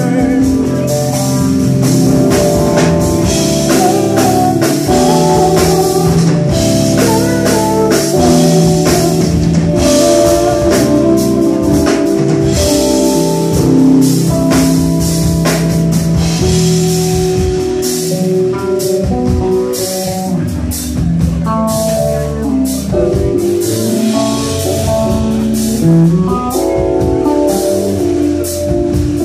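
Live band playing an instrumental passage: electric bass with drum kit and keyboards, recorded from the audience.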